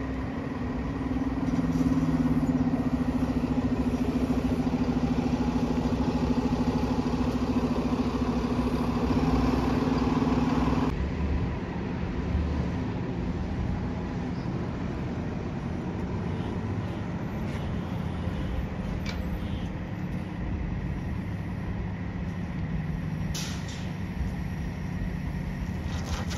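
City bus engine running as a bus drives by, a steady low drone. After a sudden cut about 11 seconds in, a quieter steady rumble of a bus moving through the transit centre and pulling up to the stop, with a few short sharp sounds near the end.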